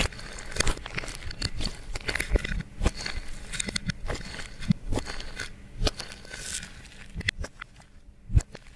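Clear slime being mixed by hand with makeup and glitter: sticky, irregular clicks and crackles, several to the second.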